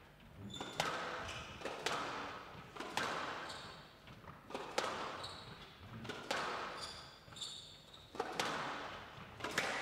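Squash rally on a glass court: the ball cracks off rackets and walls about once every second or so, each hit echoing in the hall, with shoes squeaking on the wooden floor between shots.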